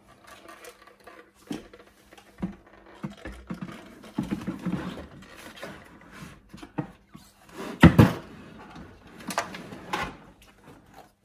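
Eheim Professionel 5e 350 plastic canister filter being pushed and shifted into a tight-fitting base cabinet: irregular knocks, clunks and scraping as it goes in, with one loud knock about eight seconds in.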